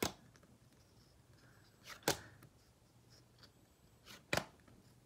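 Stiff flash cards being flipped through one at a time: three short, sharp card snaps about two seconds apart.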